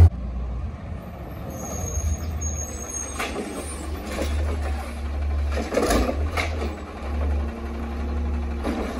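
Natural-gas engine of an Autocar ACX garbage truck with a Heil Rapid Rail automated side-loader, running steadily at low pitch. Several short sharp clatters sound over it, the main ones about three, four and six seconds in.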